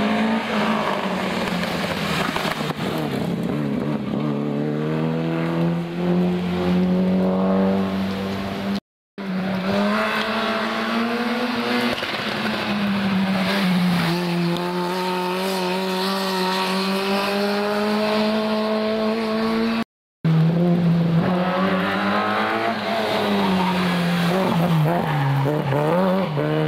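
Historic rally cars running at full throttle on a special stage, their engines revving high, the pitch climbing and dropping with the gear changes. The sound comes as three separate passes, broken twice by a short cut to silence.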